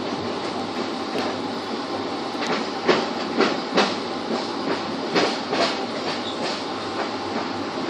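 Express passenger train running, heard from inside a coach: a steady rumble, with a run of about nine sharp wheel clacks over the rail joints, roughly two a second, starting about three seconds in.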